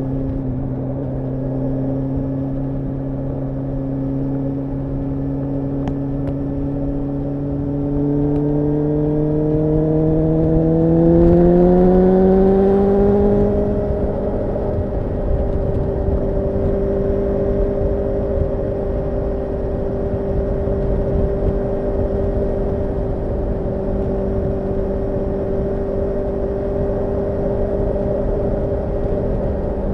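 Suzuki GSR750 inline-four engine under way: a steady note that climbs in pitch and loudness from about eight seconds in as the bike accelerates, then eases at about fourteen seconds and settles into a steady, higher cruise, over a constant rush of wind and road noise.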